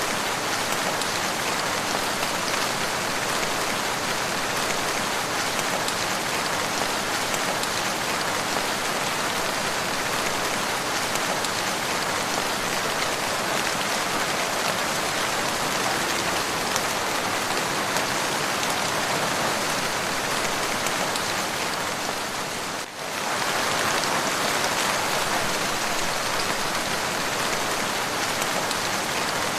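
Steady, continuous rain falling, a dense even hiss of drops. The level dips briefly about three quarters of the way through, then carries on as before.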